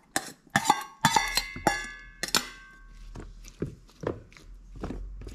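Metal spoon and stainless steel bowl clinking: a quick run of sharp clinks with a short metallic ring as diced cucumber is knocked out of the bowl, then softer scattered knocks as the spoon spreads the cucumber in a plastic salad bowl.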